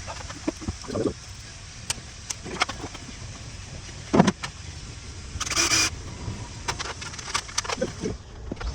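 Scattered metallic clinks and knocks of tools and metal parts being handled, with one short burst of noise lasting about half a second, about five and a half seconds in.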